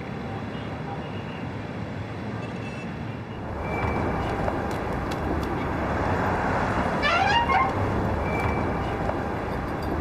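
Steady city street traffic noise, getting louder about three and a half seconds in, with a quick run of short high tones about seven seconds in.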